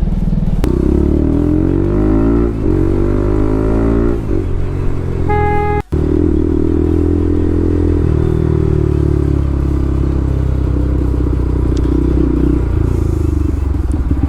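Bajaj Pulsar RS200's single-cylinder engine through an aftermarket Akrapovic full-system exhaust, loud, with the revs climbing in several pulls as it accelerates, then running steadily at cruise. A short horn beep about five seconds in, and the sound drops out for an instant just after.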